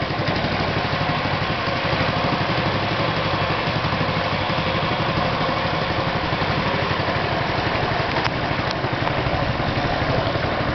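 Small boat engine running steadily at a fast, even chug as the boat moves through floodwater.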